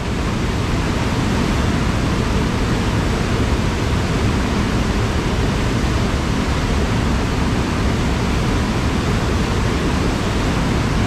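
A woodland stream in spate rushing over a small waterfall: a steady, full sound of white water, settling to an even level in the first second.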